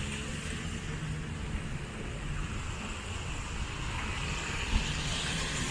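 Steady street noise of a city in a snowstorm: traffic rumble and a hiss of wet roads, with a short low bump near the end.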